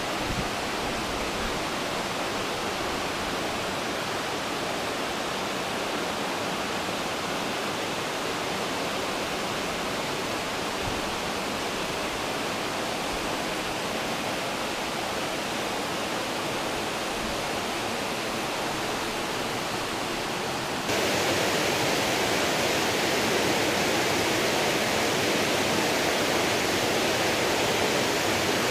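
Steady rushing of a shallow brook flowing over rocks. About three quarters of the way through it suddenly gets louder and brighter, then holds steady.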